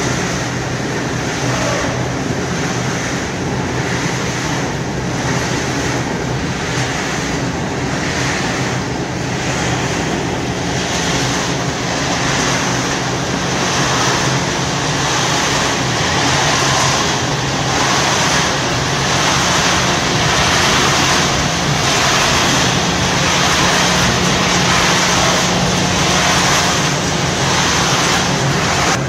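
Caramel popcorn production machinery running steadily: a low motor hum under a constant rushing noise, with a faint pulse about once a second.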